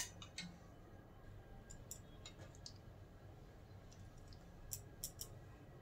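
Near silence with a sharper tick at the start and a scatter of faint light clicks and taps, a few of them close together near the end.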